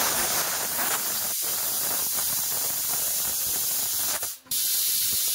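Aluminium pressure cooker letting off steam under its weight valve: a loud, steady hiss, the cooker's whistle that marks it has come up to pressure. The hiss breaks off briefly just after four seconds in and then resumes.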